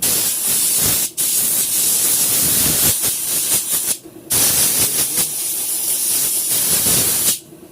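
Compressed air hissing loudly from a nozzle in three long blasts, with short breaks about one second and four seconds in, blowing dirt out of fuel-system parts.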